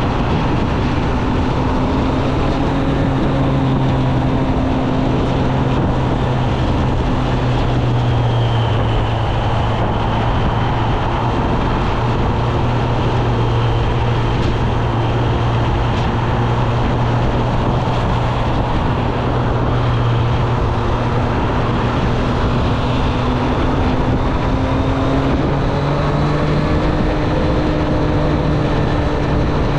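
Triumph Street Triple 765 RS inline three-cylinder engine running at a steady cruise under way, with steady wind and road noise. The engine note holds level for most of the stretch and rises a little about 25 seconds in.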